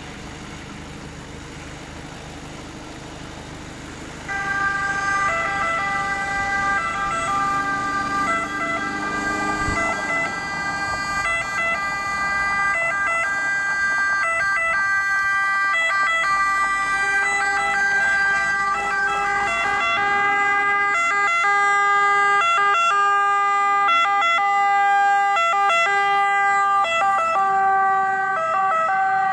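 Emergency vehicle's two-tone siren, switching back and forth between two pitches, starts loud about four seconds in as the ambulance sets off. Before it, a vehicle is running at low level. A lower steady tone joins about halfway through.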